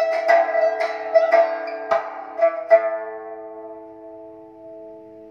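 Music of a plucked string instrument playing through hi-fi loudspeakers: a run of quick plucked notes, then the last notes ringing on and fading away through the second half.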